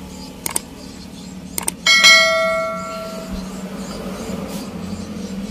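A steel combination wrench on the camshaft sprocket bolt clinks lightly twice, then gives a sharp metallic clang about two seconds in that rings like a bell and fades over about a second. A low steady hum runs underneath.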